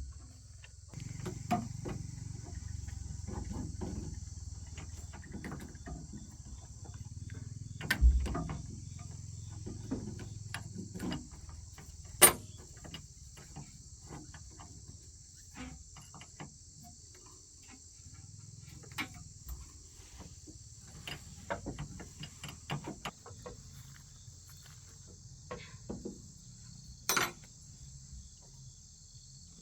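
A steady, high insect chorus runs throughout, with scattered clicks and knocks over it. The sharpest knocks come about 12 and 27 seconds in, and there is a low thump about 8 seconds in.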